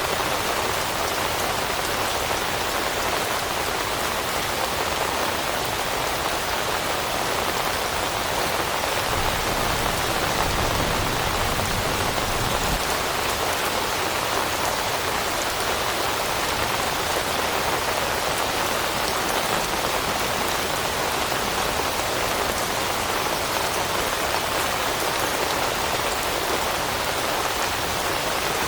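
Steady rain falling on leaves and foliage, an even, unbroken patter.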